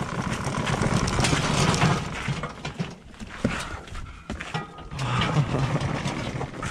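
Clattering and knocking of a Yamaha Banshee ATV, engine off, as it is pushed up aluminium loading ramps into a pickup bed, with a man's grunts of effort twice.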